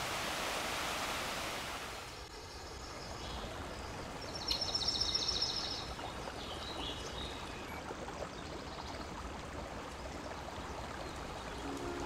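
Rushing stream water churning over rocks, loud for about two seconds and then dropping to a quieter steady wash. About halfway through, a high rapid trill sounds, followed by a few shorter high calls.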